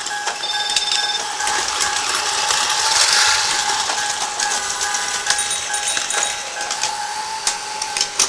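Battery-powered Tomy toys running: small motors whine steadily under a dense, rapid clicking and rattling of plastic mechanisms.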